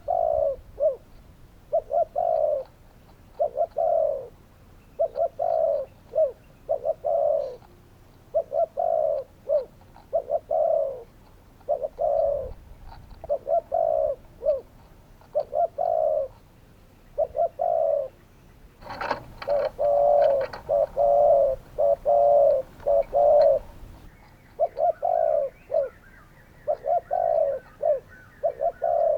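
Spotted dove calling: short cooing phrases of two or three notes, repeated every second or so. From about two-thirds of the way in, for some five seconds, the coos come faster and run together, with a hiss behind them.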